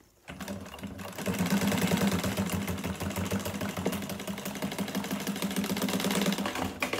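Juki industrial sewing machine stitching through sail cloth, running a second reinforcing line of stitching. It starts slowly, speeds up to a steady fast stitch about a second in, and stops shortly before the end.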